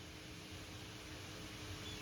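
Faint steady hiss with a low, even hum underneath: quiet room tone.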